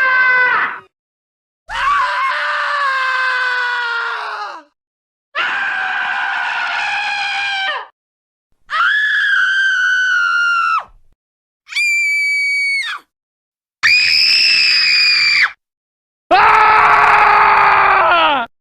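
Scream sound effects played one after another: the tail of one scream, then six more of one to three seconds each with silent gaps between. Some are very high-pitched, several fall in pitch at the end, and each starts and stops abruptly.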